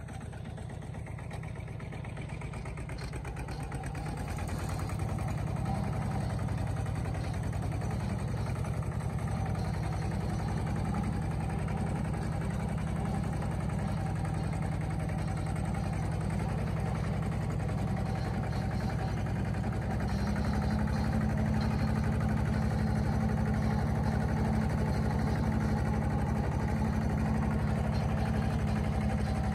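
A vehicle engine running steadily with a low hum, building up over the first few seconds and rising a notch about twenty seconds in.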